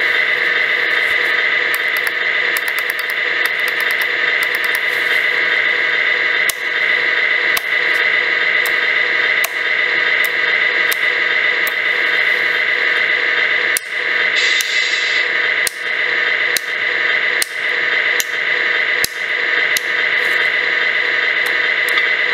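An RC truck's electronic sound unit plays a simulated truck engine idling through its small speaker, a steady noisy drone, with sharp clicks about once a second and a short hiss about two-thirds of the way in.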